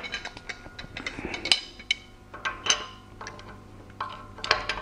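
Steel hand tools clinking and knocking: a counter-hold tool and a wrench being fitted onto a camshaft pulley, a scatter of separate metallic clinks, some ringing briefly.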